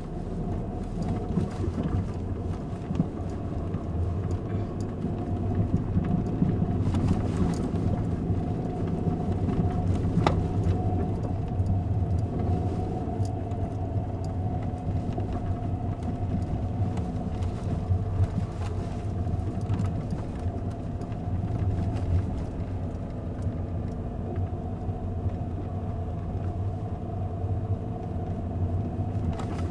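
Car interior with the windows closed: a steady low rumble from the car, with a few faint knocks.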